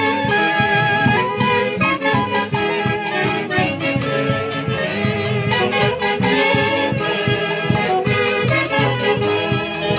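Live orquesta típica from Huancayo playing a lively dance tune with a steady beat, its reed and wind melody lines over the band.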